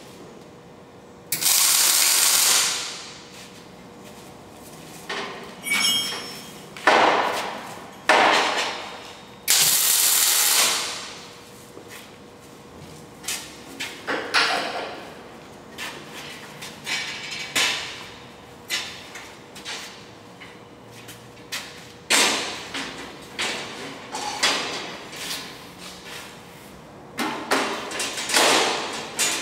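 MIG welder laying a series of short tack welds, each a crackling hiss lasting about a second, with clunks and taps of sheet steel being pushed into position between them.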